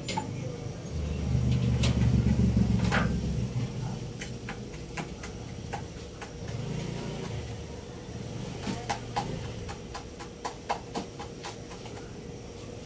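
Pot of pork broth boiling under a glass lid, with scattered small ticks and pops, thickest in the last few seconds. A low rumble swells about a second in and again around six seconds, over a faint steady hum.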